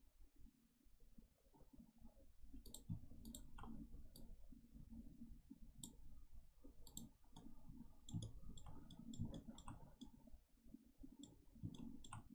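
Faint, irregular computer mouse clicks, starting a couple of seconds in, over a low steady room hum.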